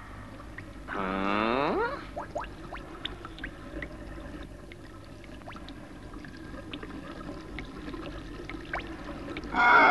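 A drawn-out, pitched cartoon vocal sound about a second in, sliding in pitch and lasting under a second. Faint scattered clicks over a low hum follow, and a short loud pitched burst comes near the end.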